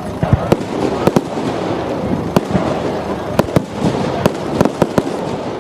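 Fireworks display going off: a dense, irregular run of sharp bangs and cracks, about a dozen in a few seconds, over continuous noise.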